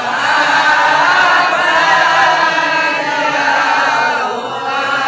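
A group of voices chanting together in long, held lines, a devotional chant of the kind recited at Maulid Nabi.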